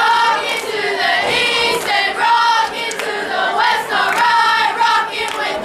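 A group of voices chanting a cheer in unison from the stands, in a run of drawn-out, sung-out syllables, over crowd noise.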